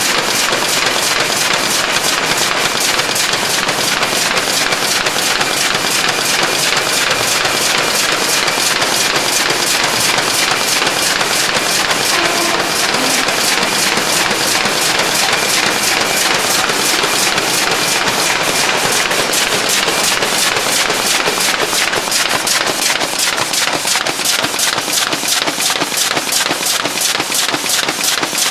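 Signature FG folder-gluer machine running in production, feeding cardboard six-bottle carrier blanks through at speed, with a loud, fast, even clatter of several impacts a second over a steady mechanical hum.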